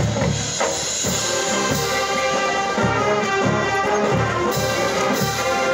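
Large marching band playing a fiery Latin tune, brass holding full chords over a regular low drum beat.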